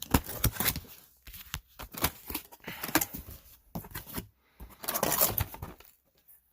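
Cardboard box and packing material rustling and scraping in irregular bursts, with a few sharp knocks, as a boxed item is handled and unpacked.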